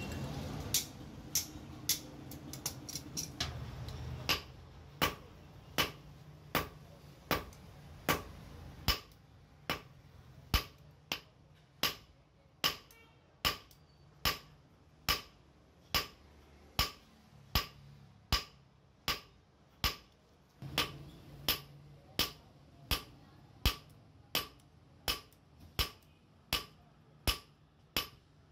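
Hand hammer striking hot steel on a steel anvil, sharp metallic blows at a steady pace a little over one a second, as a bolt is forged flat into a small knife blade. A quicker, uneven flurry of strikes comes in the first few seconds.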